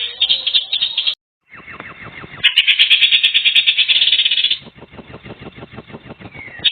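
Rapid pulsing animal trills, with a brief break about a second in, a louder trill for about two seconds in the middle, then fainter quick clicking.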